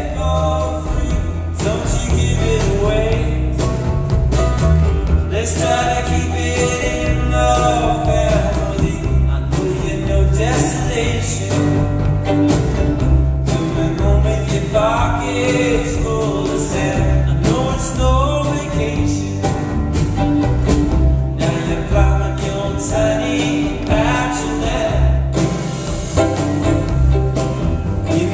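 Live acoustic performance of a song: a male voice singing over acoustic instruments with a steady bass rhythm.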